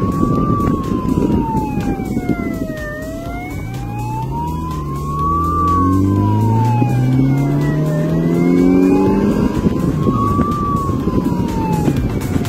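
Police motorcycle siren in a slow wail, rising and falling about every five seconds, over engine and wind noise. In the middle the engine climbs in pitch as the motorcycle accelerates.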